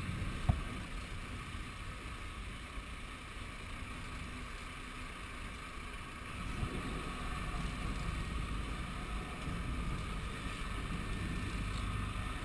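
Sportfishing boat's engines running, a steady low rumble that grows louder about six seconds in, with one sharp click about half a second in.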